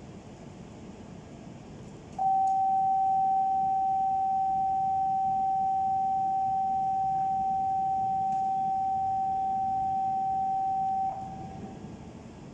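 Platform departure buzzer for a Shinkansen: one steady, pure electronic tone that starts about two seconds in, holds for about nine seconds and then cuts off, signalling that the doors are about to close and the train is leaving. A low, steady rumble from the standing train lies beneath it.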